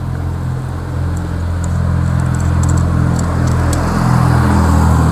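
The mower's 173cc PowerMore single-cylinder engine runs steadily and grows somewhat louder toward the end.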